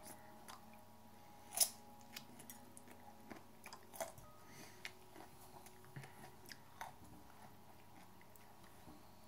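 Chewing and biting into raw hot chili peppers: scattered mouth clicks and crunches, with a sharp, louder one about one and a half seconds in and another about four seconds in.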